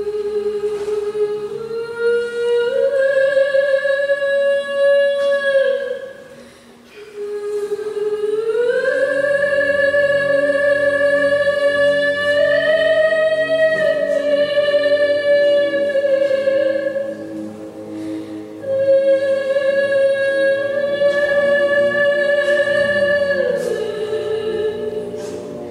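Music with a singing voice holding long, slow notes without clear words, in three long phrases that rise in steps, over a soft sustained accompaniment.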